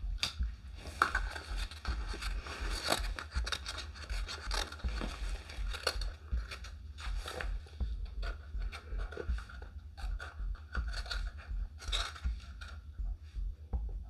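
Irregular scraping and scratching handling sounds with small clicks, over a low hum.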